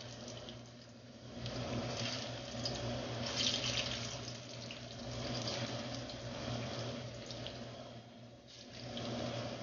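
Ripe plantain slices sizzling in shallow hot oil in a frying pan: a steady hiss flecked with small crackles that swells and eases off in waves.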